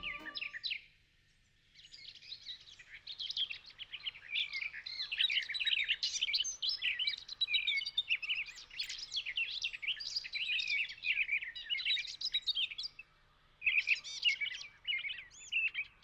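Several small songbirds chirping and singing in a busy, overlapping chorus of quick high notes, which drops out briefly about a second in and again near thirteen seconds.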